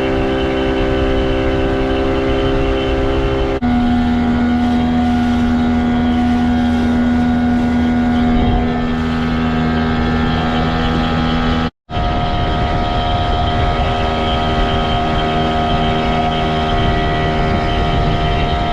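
Outboard motor running at a steady speed with water and wind noise, its pitch holding steady and then jumping to a new steady pitch at two sudden cuts, about four seconds in and near the middle.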